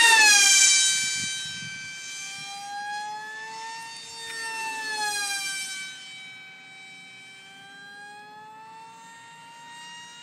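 Electric Scorpion brushless motor and propeller of a RiteWing Deamon RC flying wing, a high whine with many overtones. It is loudest as the wing passes close overhead at the start, its pitch dropping sharply as it goes by. It then fades and swells again as the wing flies around, with the pitch gliding slowly up and down.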